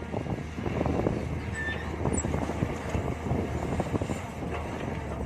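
Mini excavator engine running steadily under digging work, with irregular knocks and scraping from the bucket in soil and stones.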